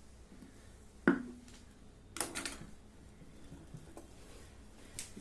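A few sharp knocks and clicks of hard objects being handled on a sewing table. One loud knock with a short ring comes about a second in, a quick cluster of clicks around two seconds in, and a lighter click near the end.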